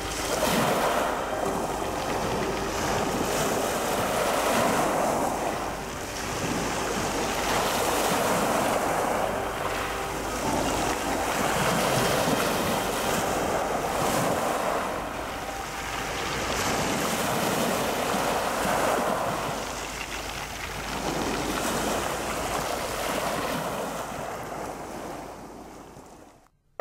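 Small Black Sea waves breaking and washing over a pebble beach, the surf swelling and easing every two to three seconds. It fades out just before the end.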